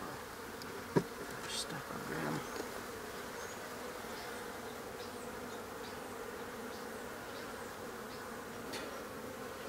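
Many honey bees buzzing steadily as the frames of an opened nuc are handled, with one sharp knock about a second in.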